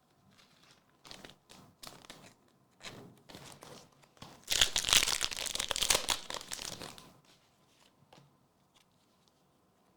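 Pokémon card booster packs and cards being handled: scattered light clicks, then about two and a half seconds of foil pack wrapper crinkling about halfway through.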